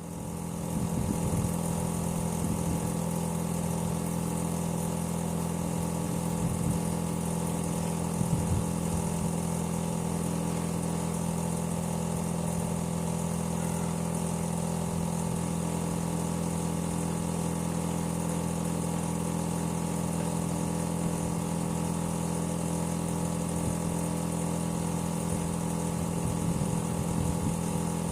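Air-conditioner outdoor unit running, its compressor giving a steady low hum made of several pitched tones, with a faint high hiss above it.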